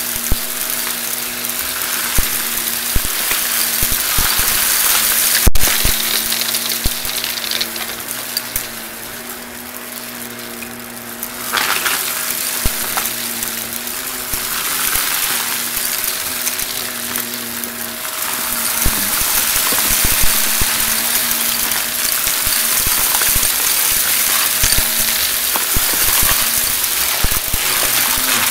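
Shark Navigator XL vacuum cleaner running with a steady hum while it sucks up a pile of confetti, sequins and other dry bits, which crackle and rattle through the nozzle. The crackling eases for a few seconds near the middle, then comes back strongly.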